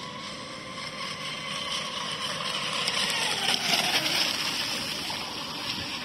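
Radio-controlled speedboat's motor whining as the boat speeds over the water, louder and then dropping in pitch as it passes a little over halfway through, over a rushing hiss.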